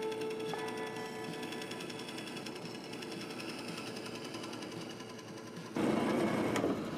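Benchtop bandsaw running, its blade cutting through small wooden blocks. The sound turns suddenly louder and rougher near the end.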